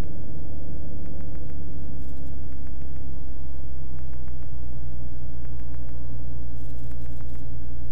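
Beechcraft Bonanza F33's six-cylinder piston engine and propeller idling as a steady low drone during a taxi, heard from inside the cabin.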